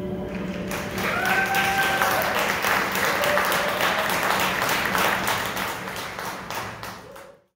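Theatre audience applauding at the end of a piano song, the clapping swelling in under a second as the last piano chord fades, then stopping suddenly near the end.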